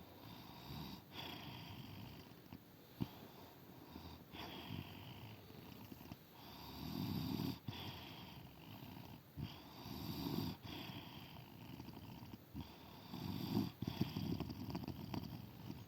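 A woman snoring in her sleep, with a low snore on each breath about every three seconds, five in all. The snores grow louder in the second half.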